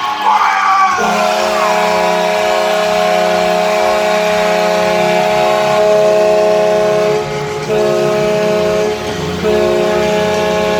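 Hockey arena goal horn, a large air horn, blaring a steady chord. One long blast starts about a second in, followed by two shorter blasts after brief breaks.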